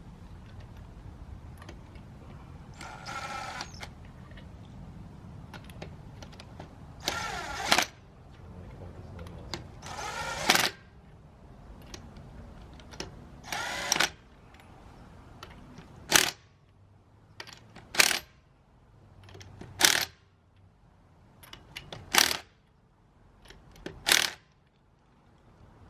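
Power tool, likely a cordless impact wrench, running the lug nuts onto a wheel: four longer runs of about a second each, then five short sharp bursts about two seconds apart as each of the five lug nuts is snugged down, ready to be torqued by hand later.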